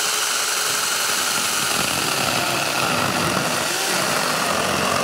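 A 21-volt cordless mini chainsaw cutting through a 2x6 wooden board, its motor and chain running steadily under load.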